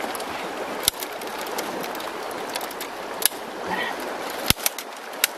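Split bamboo strips of a woven fish trap clacking and knocking as the panel is bent and pulled into a cylinder: a few sharp clacks, several close together near the end, over the steady rush of the river.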